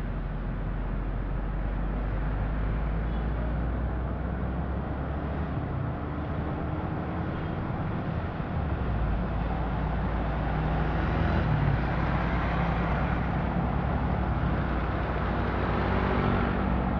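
A car driving on a city street: steady engine and tyre noise, with the traffic around it. The noise grows slightly louder about two-thirds of the way through and again near the end.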